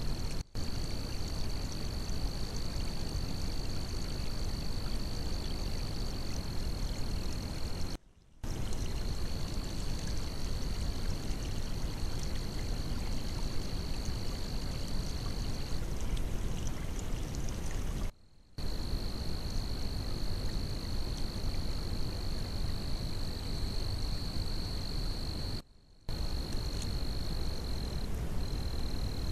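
Steady rush and trickle of water at a beaver dam, with a continuous high-pitched trill running over it, heard through a trail camera's microphone. The sound cuts out completely four times for a moment, where separate camera clips are joined.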